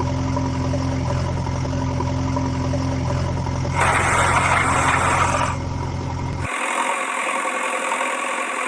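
Steady engine idling sound of the tractor or backhoe kind. A louder hissing rush joins it from about four to five and a half seconds in, and the low hum cuts off abruptly about six and a half seconds in.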